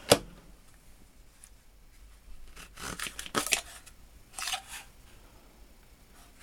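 Small metal tools being handled in a toolbox drawer: a sharp click as one is set down, then scattered rustling and light clinks as the next ones are picked up.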